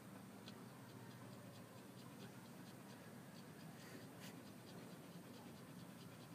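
Near silence: room tone with a faint steady low hum and scattered faint small ticks.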